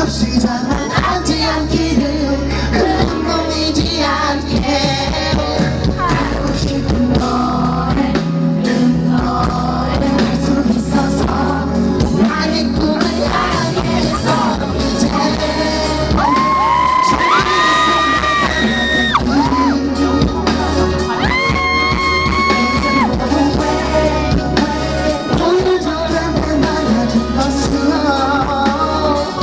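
Live pop concert: a male singer singing into a headset microphone over a loud backing track with a steady bass beat. Two long held high notes come a little past the middle.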